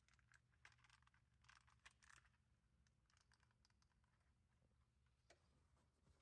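Near silence: faint room tone with a low hum and scattered soft clicks and rustles.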